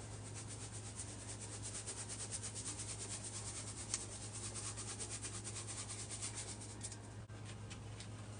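Hands rubbing and squishing wet scouring-powder paste in a quick, even rhythm of about five strokes a second, which slows and stops near the end, over a steady low hum.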